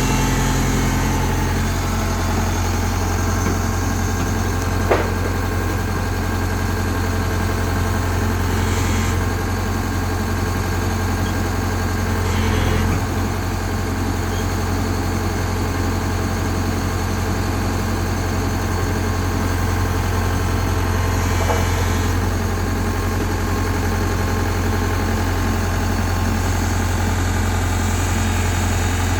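Tata Hitachi excavator's diesel engine running steadily at a constant low hum, with one sharp click about five seconds in.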